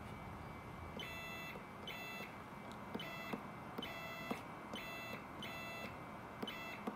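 Stepper motor on a CNC X axis being jogged from a handheld motion controller: a run of short, steady high whines, about nine in all, each lasting under half a second as the jog button is pressed and released, with small clicks between them.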